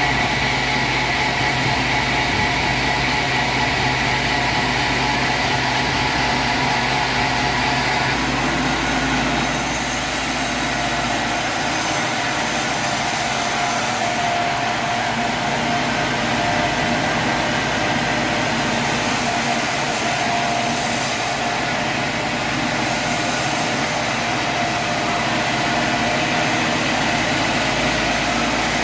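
Sawmill machinery running steadily: a continuous mechanical drone with several steady tones, its low hum dropping about twelve seconds in.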